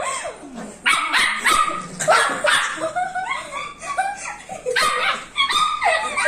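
Poodle barking repeatedly, a quick string of short, sharp barks through the whole stretch.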